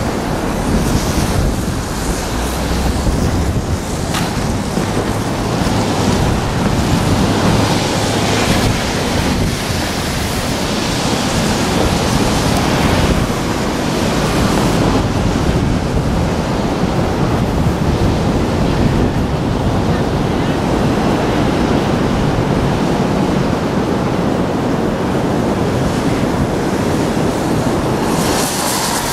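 Steady rushing roar of the American Falls at Niagara heard across the gorge, mixed with wind on the microphone that swells and eases in gusts.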